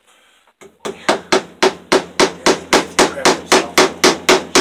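Hammer rapidly and evenly tapping a cable staple over an electrical wire, about four sharp strikes a second, starting about a second in.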